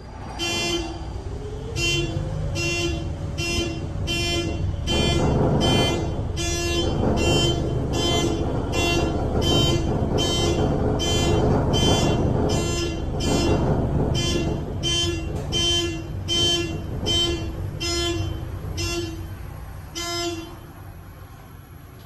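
Building fire alarm horn sounding in a steady repeating pattern, about one blast every three-quarters of a second, heard inside an elevator cab. Beneath it a ThyssenKrupp traction elevator runs, with a rising hum near the start and a low rumble that swells through the middle.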